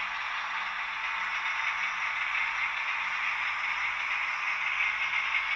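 Märklin H0 model train running on the layout track: a steady rolling and motor whir that grows a little louder near the end.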